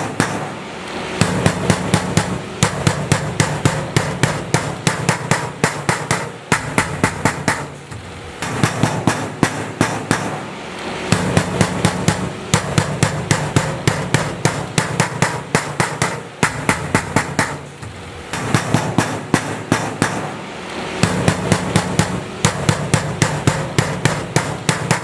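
Hammer striking repeatedly, about four blows a second, in runs broken by short pauses every few seconds.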